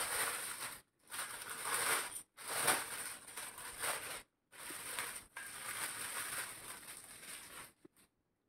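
Clear plastic bag crinkling and rustling as it is pulled off a small white statuette. The sound comes in several stretches broken by brief silent gaps and stops about eight seconds in.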